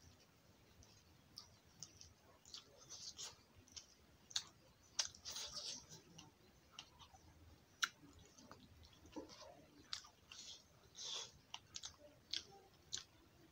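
Faint mouth sounds of a person eating fish and rice by hand: irregular wet chewing clicks and lip smacks, with a few sharper smacks.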